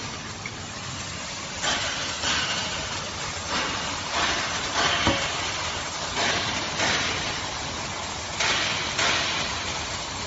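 CNC gantry plasma cutting torch hissing, with repeated surges of louder hiss about half a second long, and a sharp click about five seconds in.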